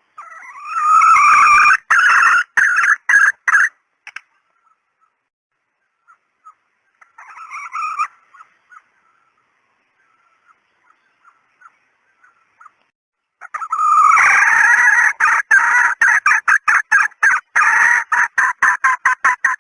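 Female red junglefowl cackling, the hen call used as a hunter's lure for junglefowl. A run of calls comes in the first few seconds and a softer call about eight seconds in. From about fourteen seconds a long series of quick repeated notes follows, speeding up toward the end.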